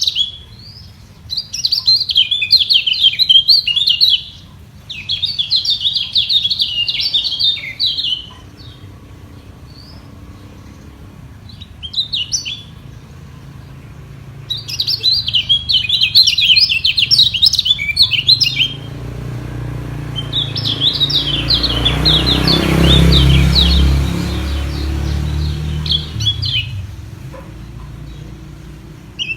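Kecial kuning songbirds singing in rapid, chittering phrases of a few seconds each with short pauses, as rivals singing against each other. About two-thirds of the way in, a low rumble swells under the song and fades again.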